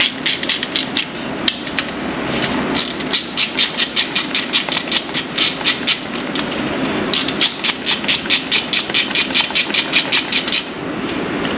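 Hand ratchet clicking in three quick runs of about four or five clicks a second, with short pauses between, as a small bolt is worked loose with an 8 mm socket.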